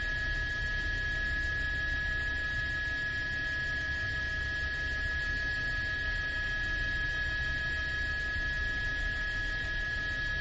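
Steady, unbroken hum: a constant high whine over a low rumble, unchanging throughout.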